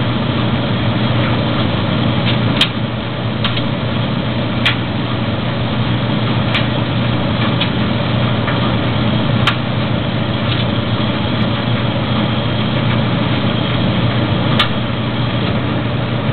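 Maytag DG608 gas dryer running: a steady hum from the drum, motor and blower, with irregular sharp clicks scattered through it. The gas burner is cycling, its flame going out near the end as the load gets dry.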